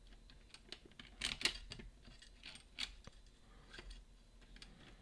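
Scattered light metallic clicks and taps from lockpicking tools and the just-picked lever lock being handled, the loudest a little over a second in and again near three seconds.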